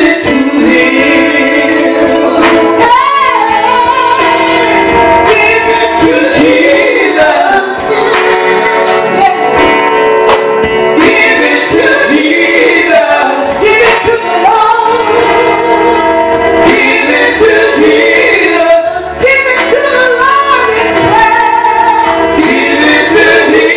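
A woman singing a gospel song into a microphone over steady held instrumental chords.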